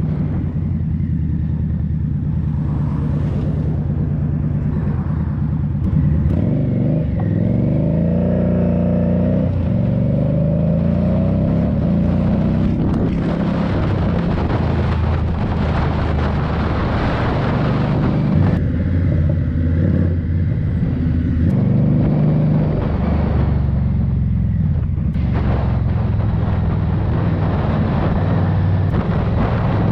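Indian Scout Bobber's V-twin engine running while riding, its pitch sliding up and down with the throttle and gear changes a few seconds in. Wind rush swells over the engine in two stretches mid-way.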